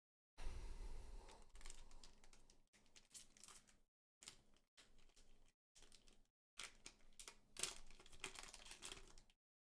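Foil booster-pack wrapper being crinkled and torn open by hand, with the rustle and clicks of the trading cards inside being handled, in irregular bursts broken by gaps of dead silence.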